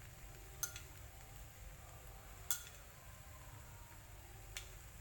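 A metal spoon clinking three times, about two seconds apart, as beaten egg is spooned over noodles in a frying pan; the middle clink is the loudest.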